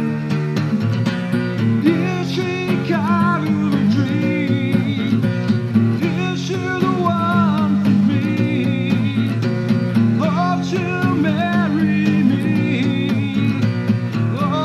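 Acoustic guitar music, the guitar chords steady underneath, with a higher melody line that bends and wavers in pitch over them from about two seconds in.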